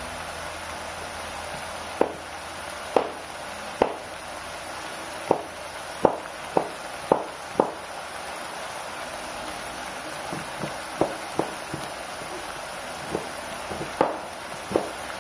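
Kitchen knife cutting through a block of palm sugar on a plastic cutting board: sharp knocks at irregular intervals, coming in runs of several strokes. Underneath is a steady hiss from chicken simmering in liquid in a wok.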